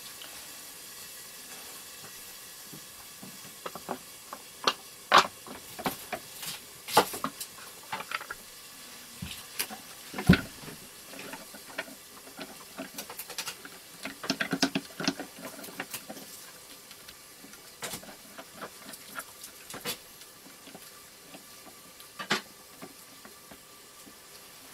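Scattered light clicks and taps of small metal hardware and clear acrylic parts being handled and fitted together, with a few sharper knocks, the loudest about ten seconds in, over a faint steady hiss.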